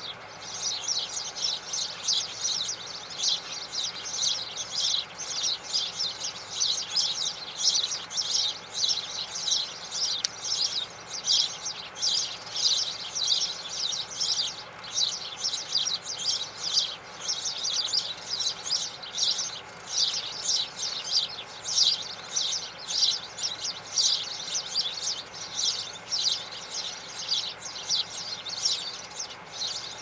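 Spanish sparrows chirping: a dense, continuous chatter of many short, high notes, several a second, with no pause.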